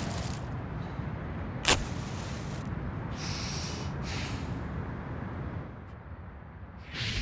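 A match struck and flaring, heard as short hissing scrapes about three and four seconds in, over a steady low rumbling drone with a single sharp click before it. Near the end a rush of fire begins to swell.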